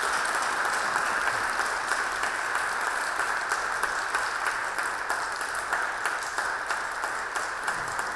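Audience applauding steadily, many hands clapping together at an even level.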